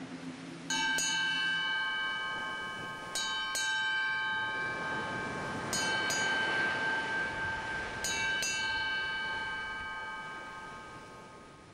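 A ship's bell struck eight times in four pairs, each stroke ringing on, the sound dying away near the end: the pattern of 'eight bells'.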